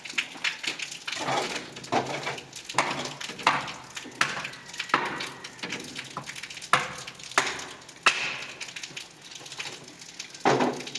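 Repeated sharp wooden knocks and cracks, about a dozen at an uneven pace of roughly one every half second to second: wood being struck, chopped or broken.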